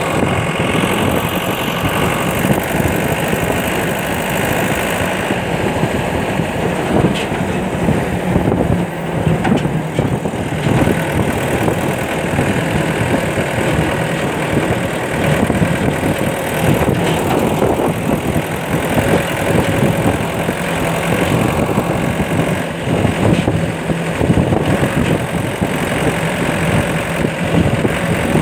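Car engine running steadily while driving, with rushing wind noise over it.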